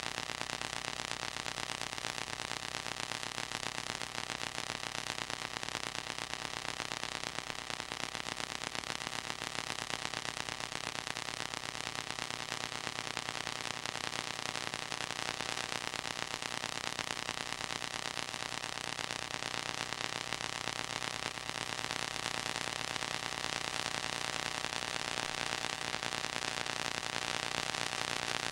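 Steady hiss with a faint hum and nothing else: the noise floor of a silent home movie's transfer.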